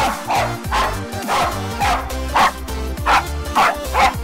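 A corgi barking at a pony to herd it: a run of about nine short, sharp barks, roughly two a second, over background music.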